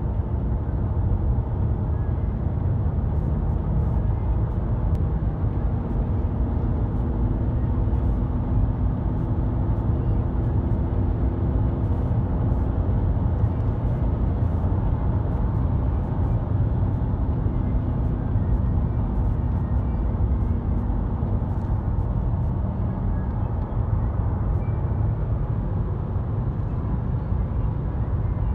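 Inside the cabin of a 2012 VW Tiguan 2.0 TDI four-cylinder turbodiesel at motorway speed in sixth gear: a steady drone of road and wind noise under the engine. The engine hum comes up as the car pulls from about 115 to 145 km/h, then fades in the last third as it eases back.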